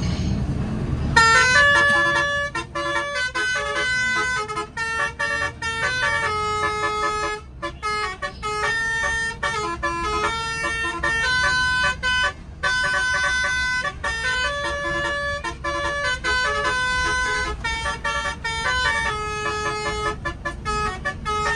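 Bus musical air horn (Basuri-style 'telolet' horn) playing a melody of held notes that step from pitch to pitch with short breaks, starting about a second in, over a low steady rumble.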